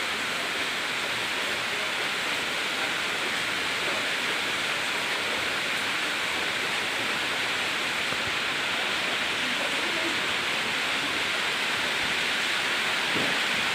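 Steady rushing noise, even in level, with its weight in the upper-middle range.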